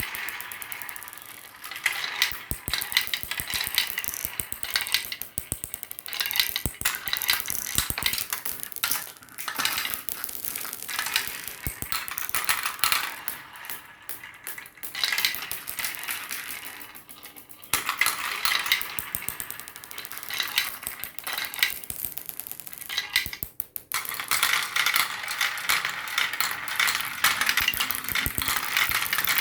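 Many marbles rolling and clattering down a marble run track: a dense stream of clicks and rattles that thins out briefly several times before picking up again.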